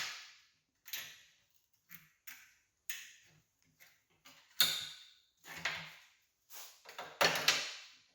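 Separate metal clanks and knocks, roughly one a second, each ringing out briefly, as a Corvair flywheel is set on a table and clamped down.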